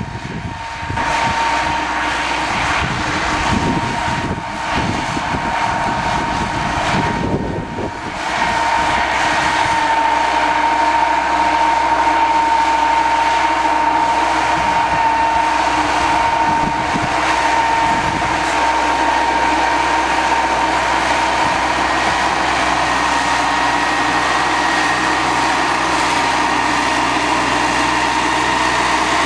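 A forestry skidder's diesel engine pulling hard under load as it tows a heavy truck uphill, with a steady high whine over the engine note. The sound is uneven at first, then louder and steady from about eight seconds in.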